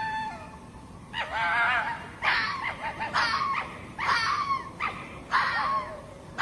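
Hoary fox calling: a run of short, high, wavering calls, about one a second.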